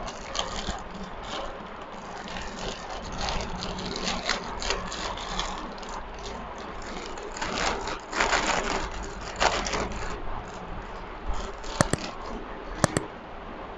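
Aluminium foil crinkling and rustling as a foil-wrapped chicken kebab is unwrapped by hand, loudest about eight seconds in. Near the end, two pairs of sharp clicks.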